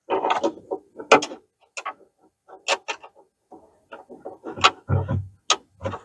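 A wrench clicking and clanking on a bolt as an A-arm guard bracket bolt is tightened from below, in irregular short metallic clicks.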